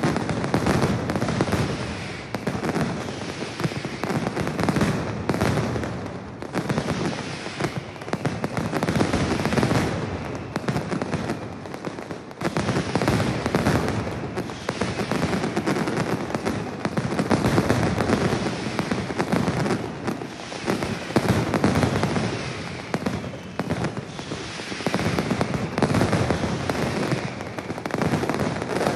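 A mascletà's barrage of masclets (large daytime firecrackers) going off in a dense, continuous rattle of sharp bangs. The volume swells and eases in waves as the firing sequence builds and thins.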